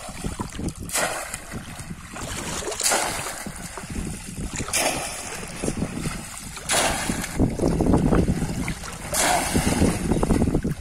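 A bamboo polo fish trap plunged repeatedly into shallow pond water, splashing five times at about two-second intervals, with water churning between the strokes.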